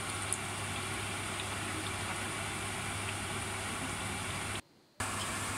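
Spinach pakoras deep-frying in hot oil in a brass kadhai: a steady sizzle and fine bubbling over a low hum, cutting out for a moment near the end.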